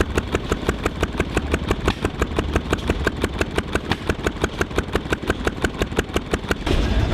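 An antique engine running at a steady, even beat of about seven strokes a second. Near the end it gives way abruptly to a louder, continuous noise.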